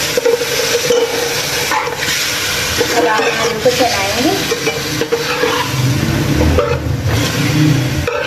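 Spiced tamarind-water masala sizzling in a steel karahi as boiled potato cubes are tipped in, then stirred and scraped around the pan with a slotted spatula.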